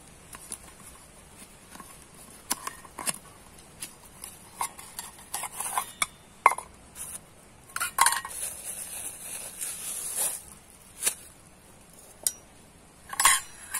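Metal camping cookware clinking and knocking as a nested pot set is taken out of a mesh stuff sack, in irregular clinks with stretches of rustling of the sack and a plastic bag.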